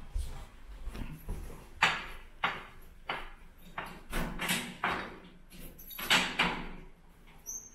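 Footsteps on a hard corridor floor, then a cluster of clicks and knocks as a door handle and latch are worked, with a brief high squeak near the end.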